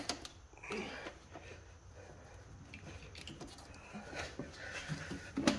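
Faint rustling, scraping and small clicks of gloved hands working at the rubber coolant hose on top of a Ski-Doo 850 Gen 4 engine's cylinder head, with a sharper click near the end.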